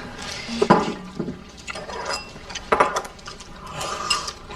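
Dishes and cutlery clinking and knocking at a meal table, with a few sharper knocks.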